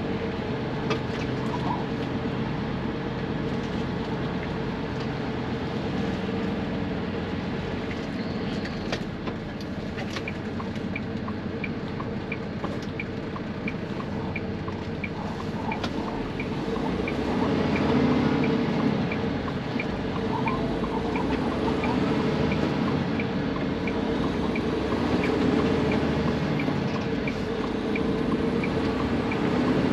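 Semi-truck's diesel engine heard from inside the cab, pulling away and getting louder about halfway through. A turn-signal relay ticks steadily, about one and a half ticks a second, through the second half.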